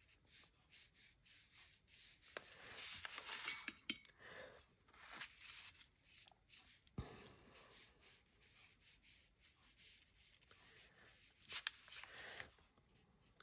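Faint scratching and rubbing of a paintbrush working watercolour paint, in many short strokes. A cluster of sharp clicks comes about three and a half seconds in, and a single dull knock about seven seconds in.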